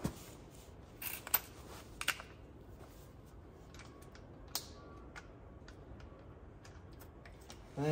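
A few light, scattered clicks and taps of small metal parts being handled as a grinding wheel and its clamp nut are fitted onto an angle grinder's spindle, most of them just after a second in and again near the middle.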